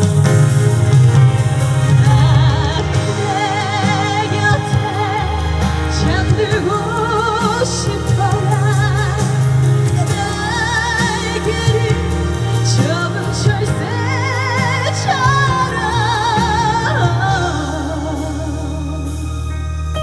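Instrumental interlude of a slow trot ballad: a lead melody with a wide vibrato over steady bass and held keyboard chords.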